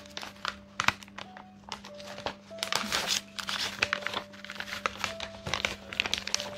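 Plastic refill pouch of Swiffer wet cleaning cloths crinkling in the hands in many quick irregular crackles as a wet cloth is pulled out of it.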